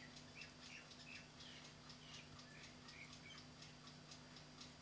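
Near silence with the faint, quick, regular ticking of a mechanical clock over a low steady hum.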